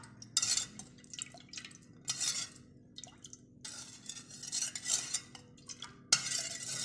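A steel spoon stirring a thin liquid in a metal cooking pot, with repeated short, irregular scrapes and clinks against the pot's sides and bottom.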